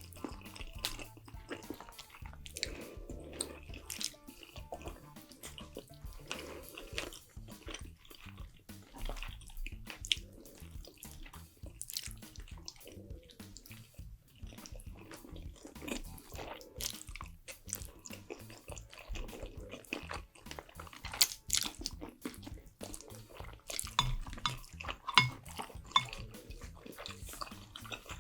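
Close-up eating sounds: wet chewing and slurping of food, with many small irregular clicks and smacks.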